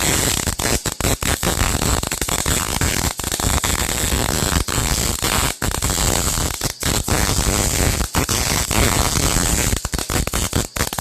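Gas-shielded welding arc crackling steadily as the drilled bolt hole in a lawn roller is welded shut, with several momentary breaks in the arc.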